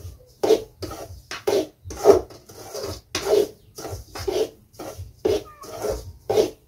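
Metal ladle scraping and stirring dry semolina in a steel kadai, in regular rasping strokes about two a second, as the semolina is dry-roasted.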